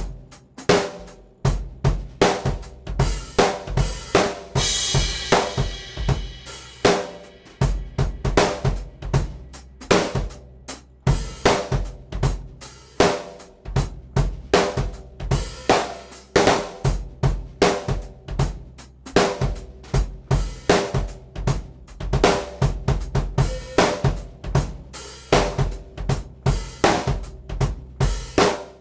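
Drum kit played in a continuous groove with fills, featuring a Yamaha Birch Absolute Custom 14x4 birch snare drum ringing over bass drum, hi-hat and cymbals. A cymbal crash washes over the beat about five seconds in, and the playing stops right at the end.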